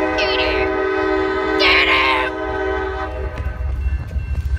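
Train horn sounding one long, steady chord of several notes, cutting off about three seconds in, over a low rumble.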